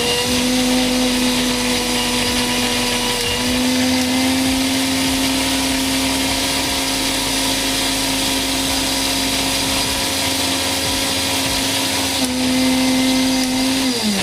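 Mixer grinder's brushed universal motor running with a load in the jar at third speed: a loud steady whine over a hiss. Near the end it cuts out and winds down. The owner takes the stopping under load for a carbon-brush fault.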